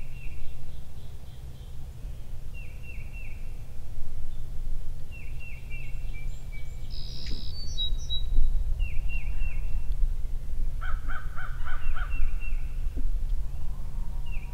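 Birds calling outdoors. A small bird repeats a short phrase of three or four quick falling notes every two to three seconds, and about eleven seconds in a series of five harsh calls sounds. A steady low rumble runs underneath.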